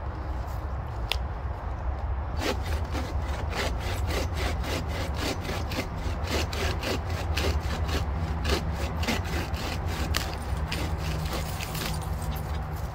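Hand bow saw cutting through a dead log, with steady back-and-forth strokes about three a second. The sawing starts a couple of seconds in and stops shortly before the end.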